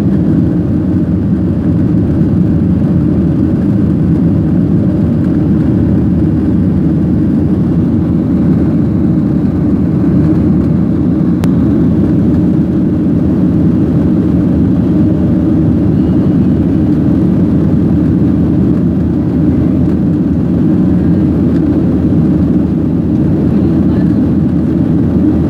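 Jet airliner cabin noise during the climb after take-off: the engines and rushing air make a loud, low, steady rumble, heard from a window seat over the wing.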